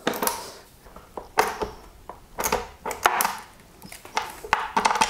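Socket ratchet being worked to tighten the handle bolts on a telescope base's wooden side panel: short bursts of ratchet clicks and knocks, coming irregularly every half second or so.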